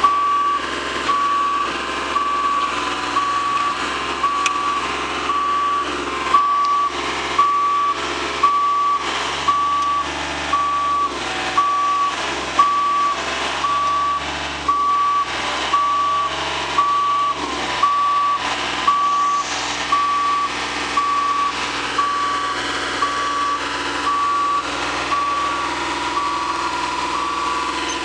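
JLG 601S boom lift's warning alarm beeping in a steady, even rhythm of about three beeps every two seconds, signalling that the boom is in motion, over the lift's diesel engine running.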